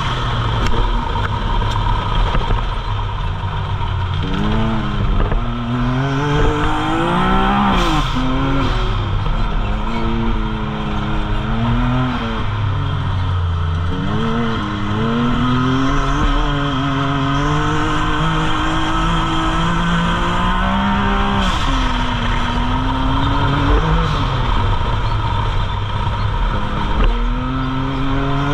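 Can-Am side-by-side's engine, heard from inside the cab, revving hard on a dirt track. The pitch climbs and drops again and again, with sharp dips where the throttle lifts and it comes back on.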